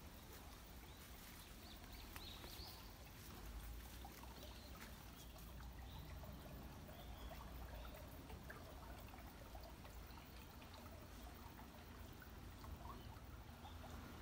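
Faint water trickling, over a low steady rumble, with a few faint high chirps scattered through.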